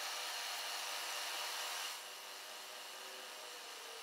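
Milling machine spindle running steadily with a small drill bit, drilling a hole in an aluminium part; the sound drops somewhat about two seconds in.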